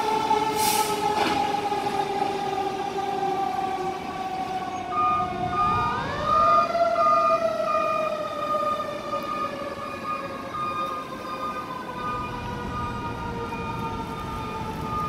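A fire engine's mechanical siren winds slowly down in pitch, is spun up again with a quick rising wail about six seconds in, then winds down slowly as the truck pulls away. A steady on-off beeping tone joins about five seconds in.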